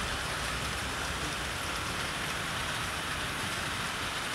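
A 00 gauge model goods train's wagons rolling along the track, giving a steady, even rushing rumble of small wheels on rail.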